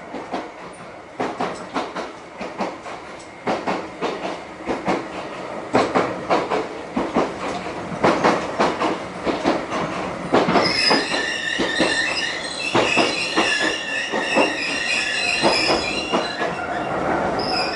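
Iyo Railway 610 series electric train heard from inside the passenger car, its wheels clicking over rail joints at low speed. About ten seconds in, a high, steady wheel squeal sets in and carries on alongside the clicks.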